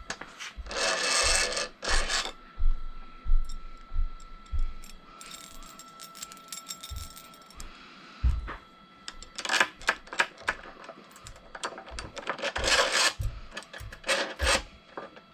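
Small metal parts clinking and scraping as a washer and nut are handled and fitted onto a threaded rod, in irregular bunches with quieter gaps between.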